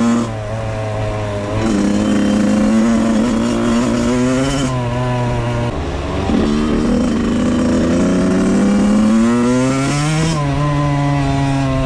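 Suzuki RM85's 85cc two-stroke single-cylinder engine being ridden: the revs fall and pick up again a few times, then climb steadily and drop sharply about ten seconds in.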